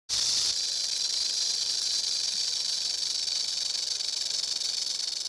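A steady high-pitched hiss, like static, that starts abruptly.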